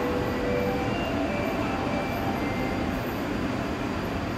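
Seoul Subway Line 3 electric train running in the station: a steady rumble with faint short tones over it.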